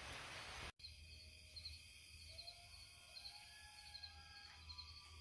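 Faint outdoor night ambience: a low hum, a faint high pulsing chirr, and after a brief dropout just under a second in, a few faint drawn-out tones that slide up and down.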